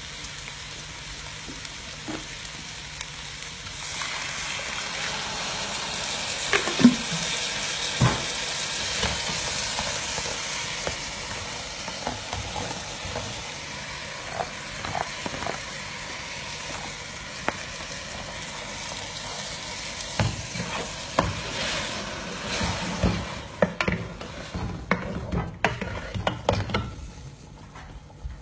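Fresh tomato pulp being pressed through a plastic colander into the hot pot of okra and meat, the juice sizzling steadily as it lands, louder from a few seconds in. Near the end the sizzle fades and the colander gives a run of sharp clicks and knocks as it is worked.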